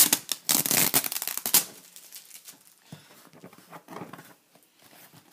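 Clear packing tape on a cardboard shipping box being ripped and picked at by hand: loud tearing and crinkling for about the first second and a half, then quieter scattered scratches and rustles of fingers on the tape and box.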